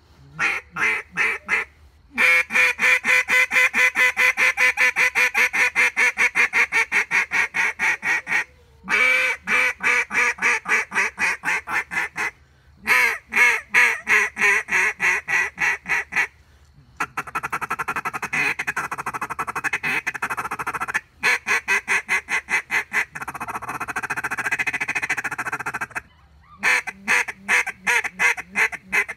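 Molt Gear QAX open-water style duck call blown by mouth: strings of loud, rapid quacks broken by short pauses, with a long run of faster, rattling notes in the latter half.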